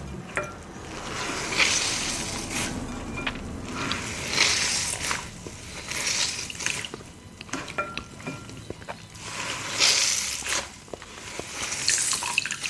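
Close-miked ASMR liquid sounds: wet swishing and squelching of liquid, coming in swells every couple of seconds, with small wet clicks in between.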